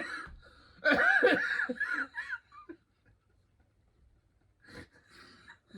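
Men laughing hard for about two seconds, then a quiet stretch with a single sharp click near the end.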